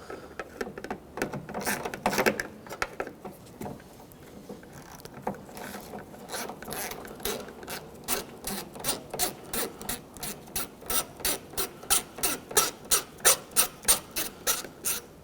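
Hand ratchet clicking as a bolt is backed out to release the outer door handle's lock mechanism. It starts quiet and uneven, then settles into a regular click, about three a second, that grows louder over the second half.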